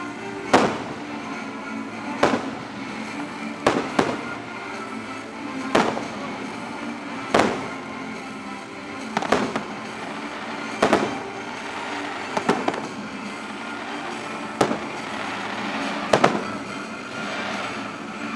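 Fireworks shells bursting in a steady series, a dozen or so sharp bangs about one every second and a half, over the show's music soundtrack.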